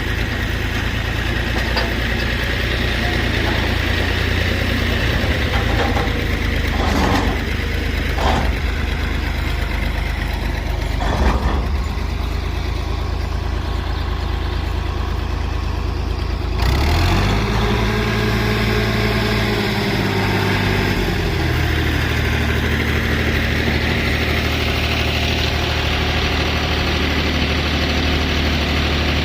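Tractor engine running steadily while driving a wheat thresher, with a few short knocks. About two-thirds of the way through the sound changes abruptly, and the engine note rises, then settles into a steady run again.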